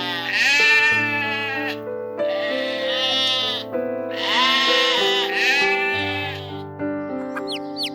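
A farm animal bleating: three long, quavering calls about a second and a half each, with the last one ending a little over halfway through. Background music with steady held notes plays throughout.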